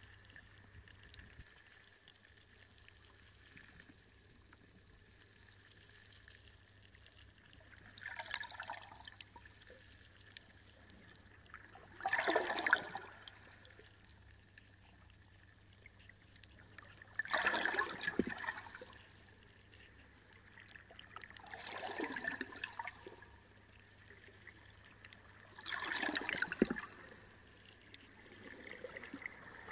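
Water in a reef aquarium splashing and gurgling in short surges about every four to five seconds, over a faint steady hum.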